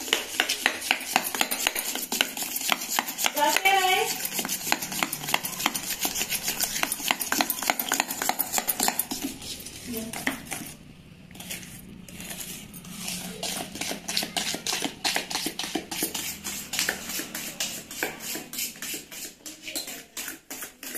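Metal spoon beating ghee, milk and sugar in a stainless steel bowl, clinking rapidly and steadily against the bowl as the mix is whipped into a cream; the beating pauses briefly about eleven seconds in.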